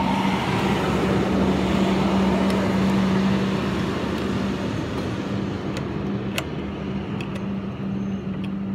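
Steady hum of a vehicle engine running, swelling over the first few seconds. A few light clicks of screwdriver work on a wire terminal strip come about six seconds in.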